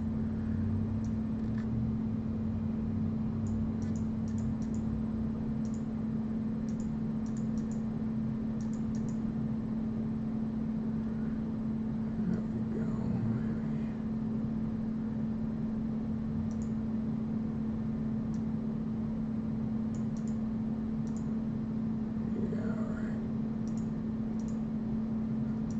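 A steady low hum, with scattered faint light clicks over it.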